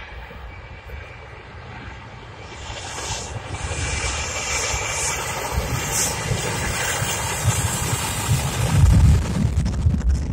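Airbus A321 twin-jet airliner's engines running at high power as it rolls along the runway close by. The sound builds from a few seconds in to a deep rumble that is loudest near the end.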